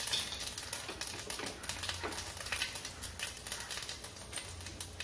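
Mustard seeds and a dried red chilli crackling in hot oil in a steel pan: a scattered run of sharp little pops over a faint sizzle.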